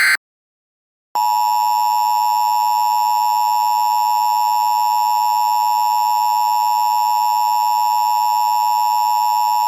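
Emergency Alert System alert opening: the last digital header burst ends with a brief screech, and about a second later the steady, loud attention tone starts and holds without a break.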